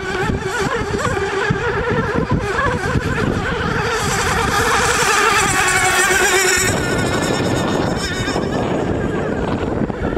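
3.5 cc Novarossi nitro engine of a radio-controlled Hydromarine Supersport 21 racing boat running flat out with a high, steady whine. It grows louder as the boat passes close, then falls off suddenly about two-thirds of the way through as it runs away.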